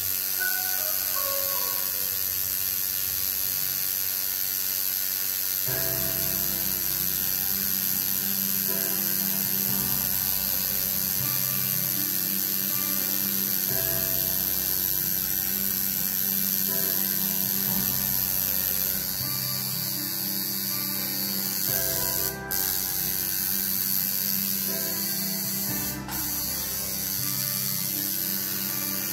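Home-rebuilt coil tattoo machine running a single needle, buzzing steadily; the buzz drops out for an instant twice in the last third.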